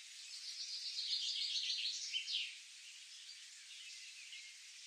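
Birds calling in a natural ambience: a fast, high trill for about two seconds, then faint scattered chirps over a soft steady hiss.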